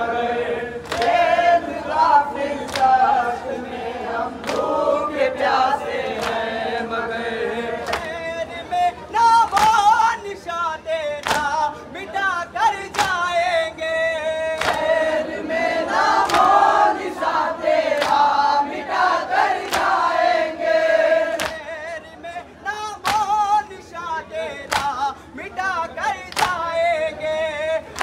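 Group of men chanting a noha, a Shia lament for Husain, in unison. Sharp slaps of hands on bare chests (matam) keep time about once a second.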